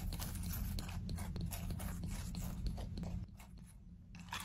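Frank's RedHot sauce poured from the bottle onto Goldfish crackers in a bowl: a run of small, quick wet clicks and crackles as the sauce lands on the crackers, over a low hum that drops away about three seconds in.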